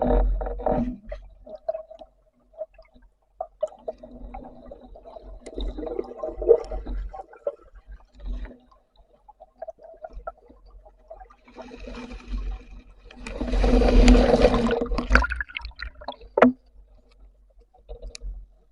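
Water gurgling and sloshing around a spearfishing diver, with a louder rushing burst of water about two thirds of the way through and a sharp knock soon after.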